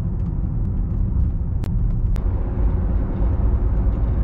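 Steady low rumble of road and engine noise inside a moving car, with two short sharp clicks about a second and a half and two seconds in.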